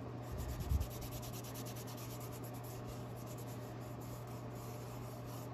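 Wet baby wipe rubbing gel stain into a laser-cut wooden ornament: a soft, faint scrubbing over a steady low hum. A dull low bump comes a little under a second in.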